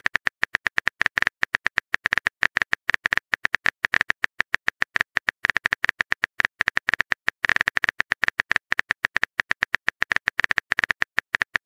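Rapid, even taps of a phone keyboard sound effect as a chat message is typed out, about eight short clicks a second.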